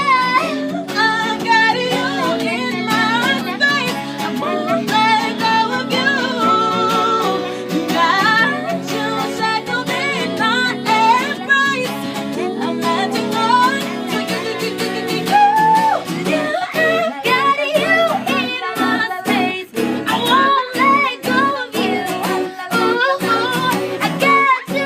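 Live female vocal group singing in harmony, with melodic runs, over acoustic guitar. A steady percussive beat comes in about two-thirds of the way through.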